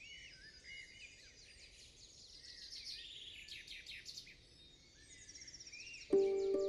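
Several birds chirping and calling, a busy mix of short chirps and quick trills. Near the end, music comes in with held notes and becomes the loudest sound.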